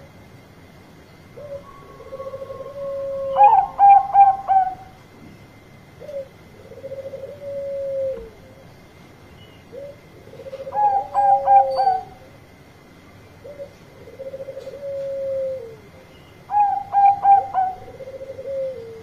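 Bangkok-strain zebra dove (perkutut) singing. Low rolling coos alternate with a loud run of four clipped, higher notes, and this phrase comes three times, about every six and a half seconds.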